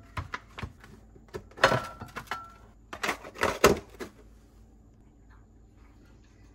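Household handling noises: a few light knocks, then two louder noisy sliding sounds about a second apart, the first with a brief steady tone, then quiet.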